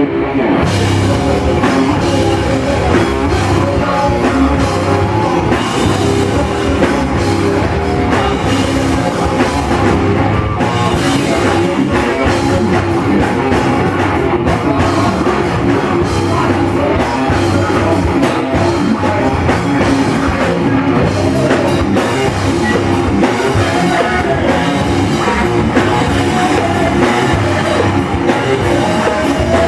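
Loud rock music with a drum kit, playing steadily without a break.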